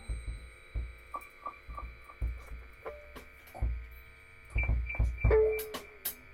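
Electronic instrumental music: synthesizer notes over irregular low bass thumps, with short repeated notes a second or two in and a held tone about five seconds in.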